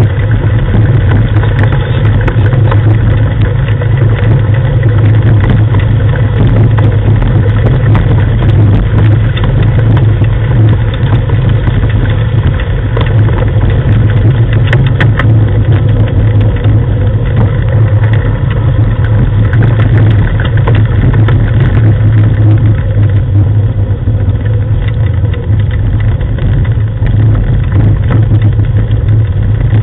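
Loud steady rumble of a dog-drawn rig travelling along a gravel track behind a running sled dog team, with scattered small clicks and rattles.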